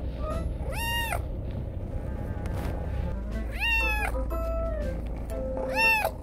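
Kitten meowing three times: short, high-pitched meows about a second in, midway and near the end, asking to be played with.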